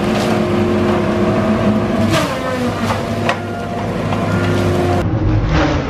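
Tigercat LX830D tracked feller buncher running hard as its disc-saw felling head cuts through trees and brush. The engine and saw drone steadily, with several sharp cracks of wood and debris.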